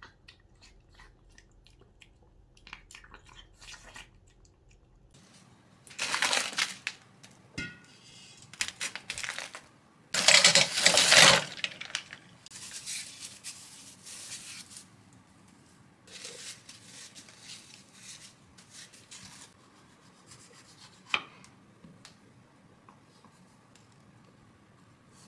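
Frozen-shrimp prep: a plastic packet crinkling and tearing open, then the shrimp poured into a stainless steel bowl of water, which is the loudest sound. Small handling clatter and a sharp click follow.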